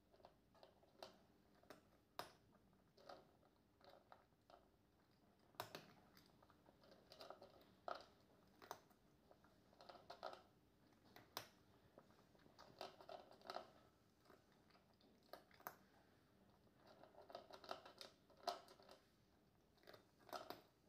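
Flame point Siamese cat eating from a plastic bowl: faint, irregular crunches and clicks of chewing, about one or two a second.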